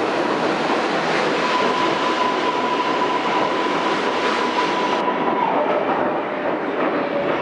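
R142A subway train pulling out of the station, its cars running past on the rails with a loud, steady rumble and rattle. A steady high whine rides over it and drops to a lower pitch about five and a half seconds in as the train pulls away.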